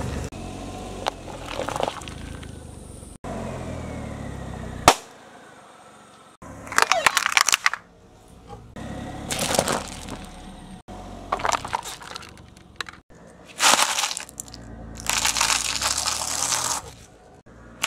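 Car tyre rolling over and crushing plastic toys and other objects, heard as a string of short separate clips of cracking and crunching. The loudest is one sharp snap about five seconds in, followed by longer crunching bursts.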